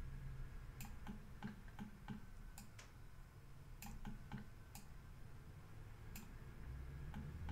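Faint, irregular clicks of a computer mouse's buttons over a low steady hum.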